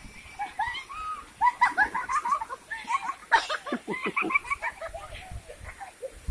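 High voices squealing and shouting in many short overlapping cries, busiest in the middle.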